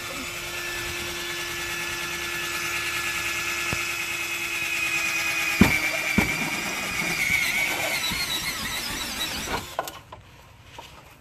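Cordless drill boring out holes in a 2016 Ram ProMaster City's sheet-metal roof, the bit giving a steady high-pitched whine against the metal. Two sharp knocks come a little past halfway, and the drilling stops shortly before the end.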